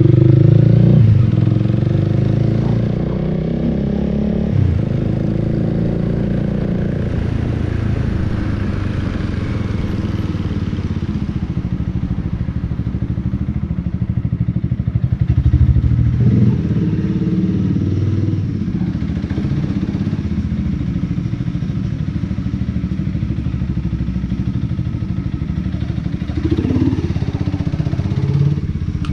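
Honda Rebel 300's single-cylinder engine running at low road speed, heard from the rider's seat. The throttle swells and eases off several times, with a stronger pickup about halfway through.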